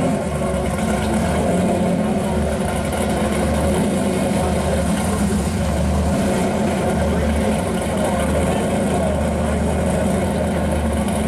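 1966 Chevy II Nova pro street car's engine idling with a deep, uneven note that swells and drops every second or so.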